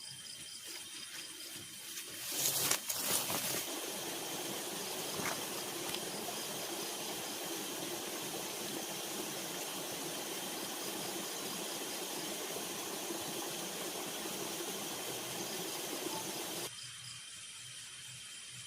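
Steady rushing of water from a forest waterfall or stream, with a brief louder flare about two and a half seconds in. It cuts off suddenly near the end. Faint steady high-pitched insect tones run underneath.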